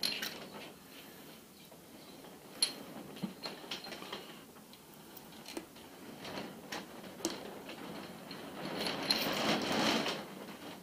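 Crankshaft main bearing cap bolts being unscrewed by hand and handled on a John Deere 410 backhoe's engine block: scattered light metallic clicks and taps, with a louder stretch of scraping and rubbing about nine seconds in.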